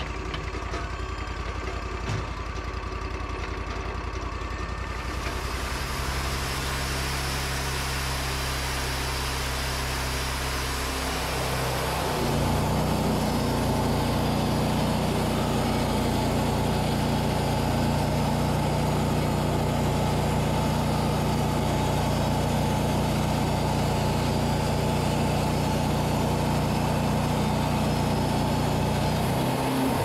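Wood-Mizer portable band sawmill's engine idling, then speeding up about twelve seconds in and running steadily louder as the band blade cuts through a yellow birch log.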